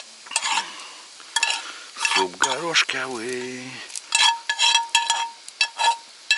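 A metal spoon stirring and clinking against a metal cooking pot, each knock leaving a short ringing tone; the clinks come thicker and faster in the second half.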